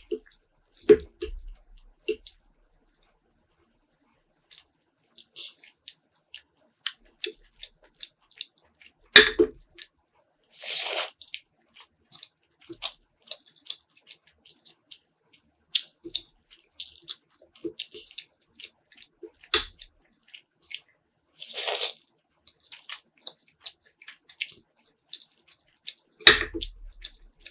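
A person eating close to the microphone: scattered wet chewing clicks and smacks, with two short slurps about ten seconds apart.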